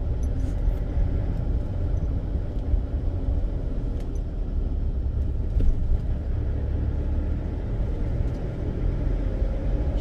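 Car driving on a paved road, heard from inside the cabin: a steady low rumble of engine and tyres.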